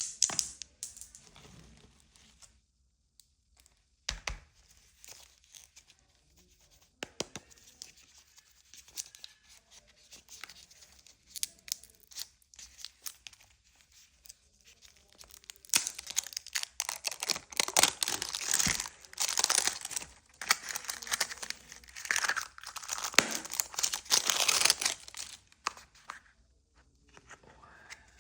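Candy wrapper crinkled and torn open close up: scattered crackles at first, then a long stretch of dense crinkling and tearing over the second half.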